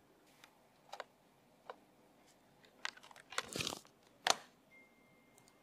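Faint handling noises at a lectern: a few scattered soft clicks and taps, a brief rustle about three and a half seconds in, then a sharper click just after. A faint steady high tone starts near the end.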